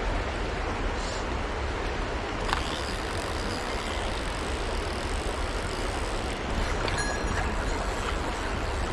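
Steady rushing of a mountain stream, with a few faint short ticks over it.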